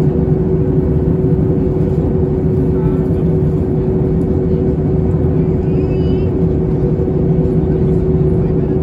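Steady cabin noise inside an Airbus A320 in flight: the constant rush of engines and airflow, with a steady droning hum underneath.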